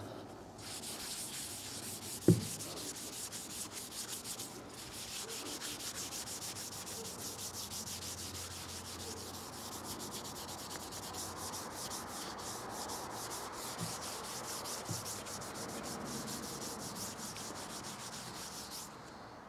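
Paper towel rubbed briskly back and forth over a wooden rifle stock, wiping on wood stain, as a continuous dry scratching with a short break about four and a half seconds in. A single knock a couple of seconds in is the loudest sound.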